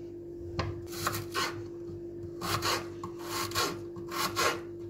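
Kitchen knife cutting a peeled onion on a wooden cutting board: a series of short slicing and scraping strokes against the wood.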